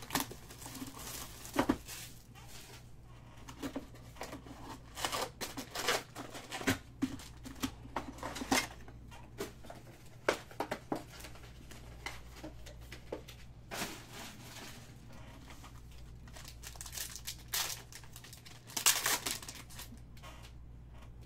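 Plastic wrapping and card-pack wrappers of a 2019 Topps Tribute baseball box being torn open and crinkled, in a run of sharp rustles, with a louder burst of crinkling near the end. A steady low hum runs underneath.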